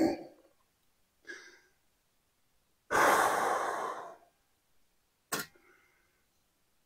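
A man sighs, one long breath out lasting about a second, about three seconds in, followed by a short click near the end.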